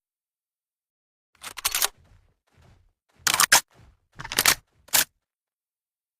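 A makeshift shotgun sound effect: sharp mechanical clacks in four quick groups, like a shotgun's action being worked, each group cut off into dead silence.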